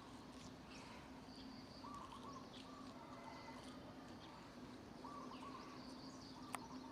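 Faint outdoor ambience with birds calling: a short warbling phrase repeats about every three seconds over thin high peeps and a steady low hum, with one sharp click near the end.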